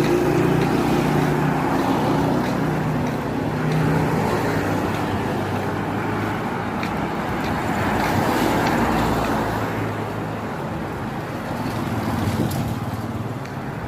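Road traffic noise, with a motor vehicle's engine hum rising and falling over a steady rush.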